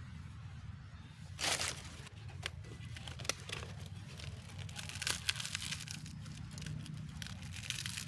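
Rustling and crackling, like dry leaves or similar material being handled or moved over. There is a loud burst about one and a half seconds in, then scattered sharp clicks, over a steady low hum.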